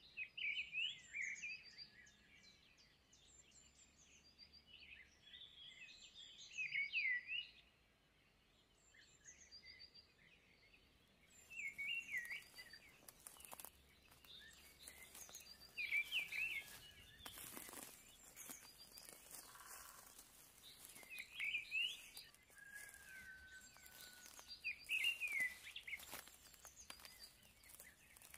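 Birdsong: a bird repeats a short phrase of quick down-slurred whistled notes every four to five seconds, with fainter high chirps from other birds between them.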